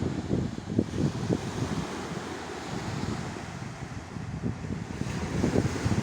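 Strong wind buffeting the microphone in irregular gusts, over the steady wash of sea surf.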